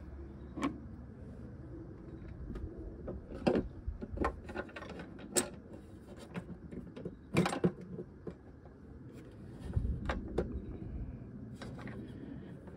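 New steel hood hinge and its bolt clicking and knocking against the car's body as the hinge is positioned by hand and the front bolt is started: a scattering of sharp metallic taps, the loudest pair about seven and a half seconds in.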